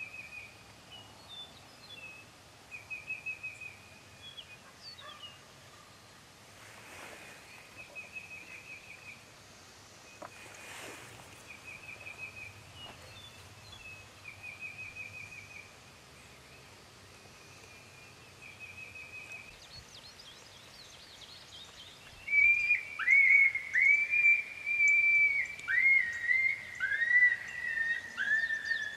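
Coyote pup howls and yips start about two-thirds of the way in: a loud series of falling, whistle-like howls broken by short rising yips. Before them a songbird repeats a short trill about every two seconds, with two soft swishes in between.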